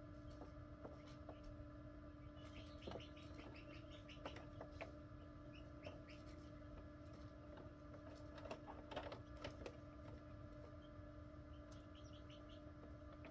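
Faint peeping of newly hatched Coturnix quail chicks: clusters of short, high chirps, over the steady hum of the incubator, with a few light clicks.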